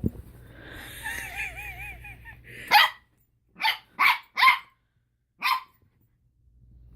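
A dog growls in a warbling, wavering pitch, then gives five short, sharp barks over the next three seconds. It is a protective warning, the dog guarding a sleeping child from being touched.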